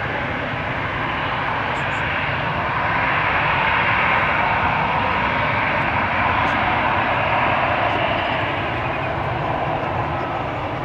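Airbus A319 jet engines running at taxi power as the airliner turns on the runway: a steady jet hiss and whine that swells for a few seconds in the middle, as the engines swing to face the listener, then eases off.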